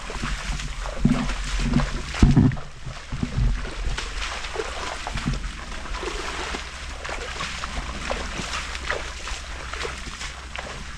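Footsteps sloshing through shallow swamp water and mud, with brush rustling against clothing and gear and a low rumble on the microphone. A few heavier thuds in the first few seconds.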